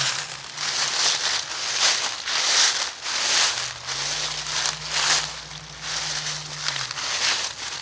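Footsteps crunching and rustling through dry leaves and undergrowth, an uneven step about every half second to second.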